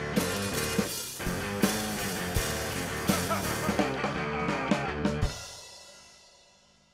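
Outro music, a rock track with drums and guitar, ending on a final hit about five seconds in and ringing out to near silence.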